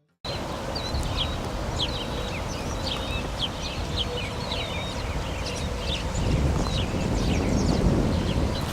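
Birds chirping outdoors, many short quick high chirps repeated several times a second, over a steady low rumble.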